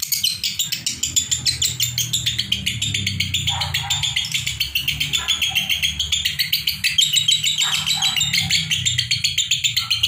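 Fischer's lovebirds chattering nonstop in a rapid, unbroken string of high chirps, about five a second. This is the continuous 'konslet' chatter without pauses that keepers play to tutor young lovebirds.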